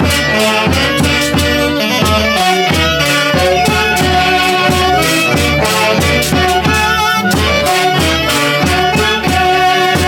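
Huayligia, an Andean folk dance tune, played by a Huancayo orchestra. Violin and wind instruments carry the melody over a steady, even bass beat.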